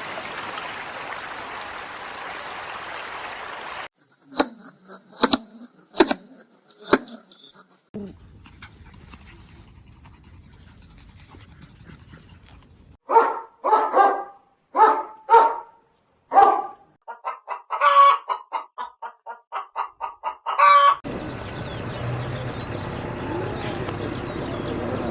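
A string of different animal calls, one short clip after another: four spaced calls, then five loud separate barks, then a fast run of short clucks, between stretches of steady noise.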